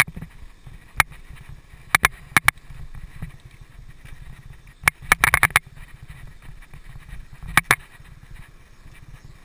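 Mountain bike being ridden, heard from a helmet camera: a low steady rumble of wind and tyres on the microphone, broken by sharp clicks and clatters from the bike over bumps, with a rapid cluster about halfway through and a pair later on.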